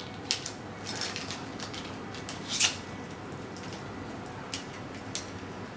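Irregular small clicks and rustles of a Wi-Fi antenna being unwrapped from its bag and handled, with one sharper click about two and a half seconds in.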